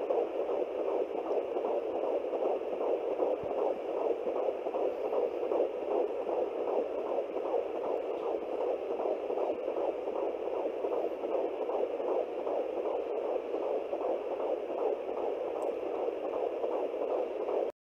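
Fetal heartbeat of a 14-week baby, picked up by a handheld home fetal Doppler and played through its speaker: a fast, even pulse of about two to three beats a second over a steady hiss, cutting off suddenly near the end.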